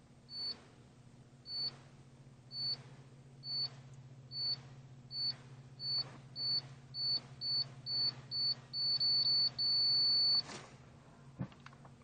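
Pittsburgh Pro digital torque wrench adapter beeping as torque is applied to a head bolt: short high beeps about a second apart that come faster and faster as the reading nears the set torque, then one steady beep for just under a second when the target is reached. A low steady hum runs underneath.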